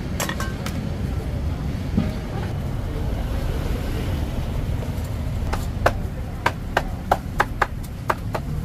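Roadside street-food stall ambience: a steady low traffic rumble, with a run of about eight sharp knocks in quick succession in the second half.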